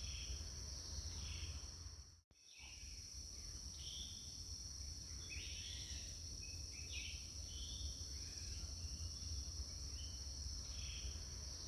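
Rainforest ambience: a steady high-pitched insect drone with short bird chirps every second or so, over a low rumble. It drops out for a moment about two seconds in.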